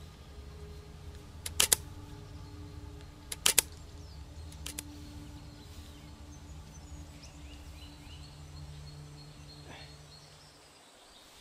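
A DSLR camera's shutter firing three times, each release a quick double click, the first two sharp and the third fainter, over a low steady hum.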